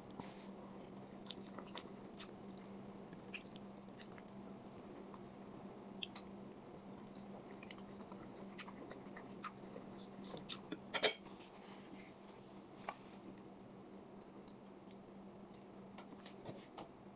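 Close-miked chewing and biting: small mouth clicks and crunches scattered throughout, with a sharper, louder click about eleven seconds in. A steady low hum runs underneath.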